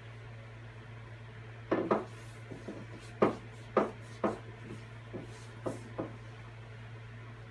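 A wooden cutting board being rubbed and shifted about as oil is worked into it: a series of short scuffs and knocks, the loudest about a second and a half in.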